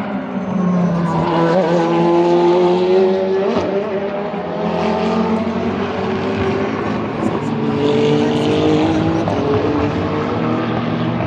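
Endurance race cars' engines running at speed on track, several passing in turn, their engine notes sliding down in pitch as they go by.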